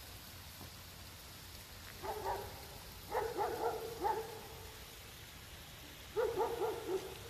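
An animal calling in four quick runs of short, pitched notes over a steady faint hiss.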